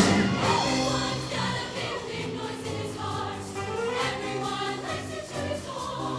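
Show choir singing in full voice over band accompaniment with a steady percussive beat.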